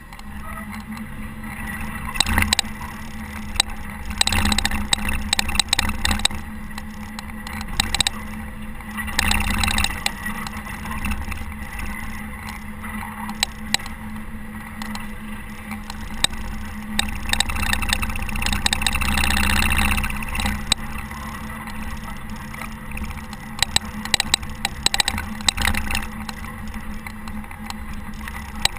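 Caterpillar TH330B telehandler's diesel engine running steadily while snowplowing, swelling louder now and then, with scattered sharp knocks and clicks.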